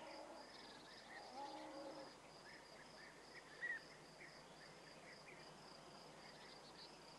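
Near silence: faint outdoor background with a steady high-pitched chirring and a few short, faint chirps.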